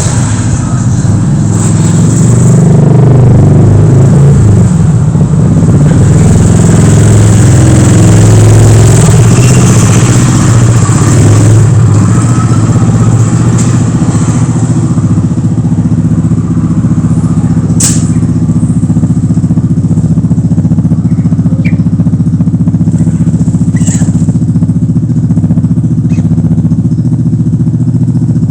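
A motor engine running steadily and loudly, swelling for several seconds near the start and then settling, with two brief sharp clicks later on.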